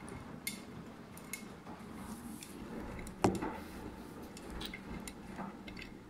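Arçelik front-loading washing machine in its wash phase, the drum turning a wet load through water with a low motor hum and sloshing. Scattered clicks and clinks of the tumbling load against the drum, with one louder knock about three seconds in.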